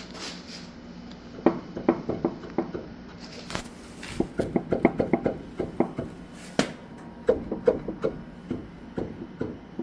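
Irregular clunking and knocking in uneven clusters over a steady low hum, from a 2008 Ford F-250's failing wheel bearing.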